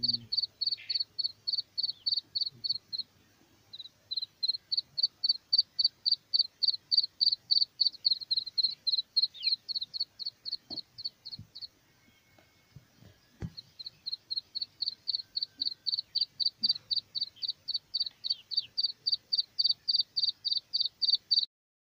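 Black francolin chicks peeping: a fast, even run of short high peeps, about four or five a second, broken by a brief pause about three seconds in and a longer pause of about two seconds around twelve seconds in.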